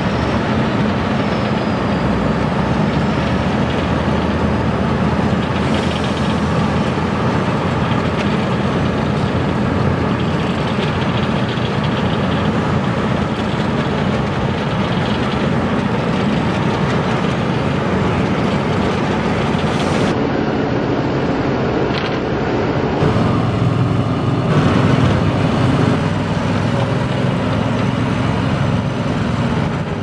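Asphalt paving machinery running steadily: the diesel engines of a paver and a small road roller. The sound changes about two-thirds of the way through.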